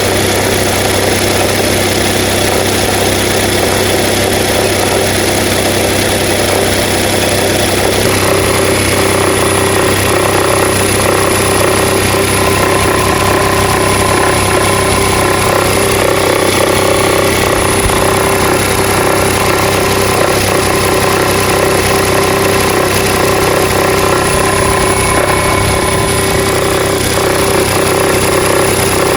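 Nissan Note NISMO e-POWER's HR12 three-cylinder engine running steadily, its note shifting about eight seconds in.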